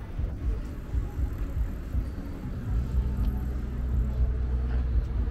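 City road traffic: a car engine running close by, a low rumble that grows louder about two and a half seconds in.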